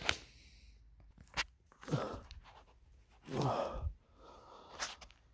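Adjustable wrench on a VG6 Epsilon muzzle brake, with a few light metal clicks as it is snugged tight on the rifle barrel. Two short breathy grunts of effort, about two seconds in and again a second and a half later; the second is the loudest sound.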